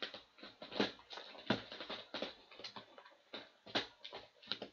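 Sealed Upper Deck Ice hockey card boxes being mixed up by hand on a table: irregular knocks and taps of cardboard box against box and table, with sliding rustle between them.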